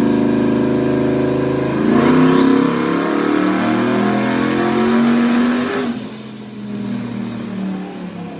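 Turbocharged truck engine making a pull on a chassis dyno: steady running for about two seconds, then full throttle with a rising whine for about four seconds before it lets off. The engine is breaking up under boost, the spark being blown out, which the tuner puts down to either the plugs or the wires.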